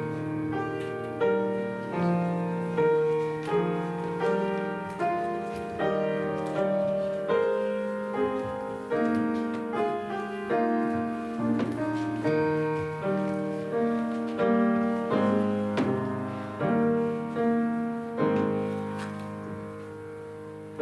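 Solo piano playing a slow, hymn-like piece, each chord or note struck and then dying away.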